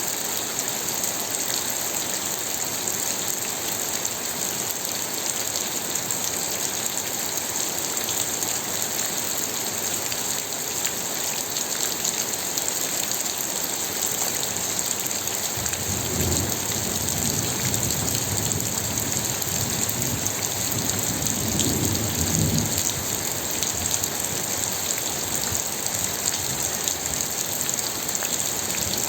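Steady rain pattering. About halfway through, a low rumble of thunder rolls for around six seconds.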